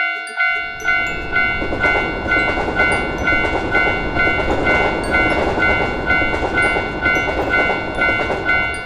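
Railroad crossing bell ringing steadily about twice a second while a train passes through the crossing. The train's rumble and rush start about half a second in and stop near the end.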